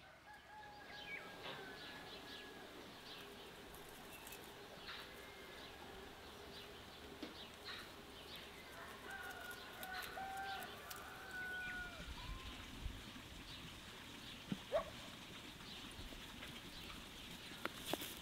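Birds calling faintly: scattered short chirps and a few brief whistled notes.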